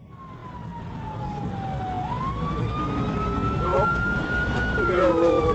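Police car siren wailing, a slow up-and-down tone: it falls, swings back up about two seconds in, and starts falling again near the end. Under it, engine and road noise grow steadily louder as the cruiser speeds up in pursuit.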